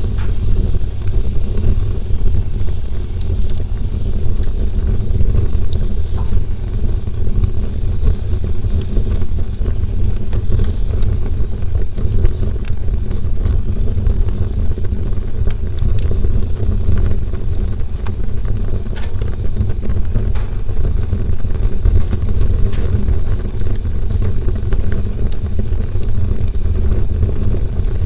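Campfire burning with a deep, steady low rumble and scattered sharp crackles and pops of burning wood.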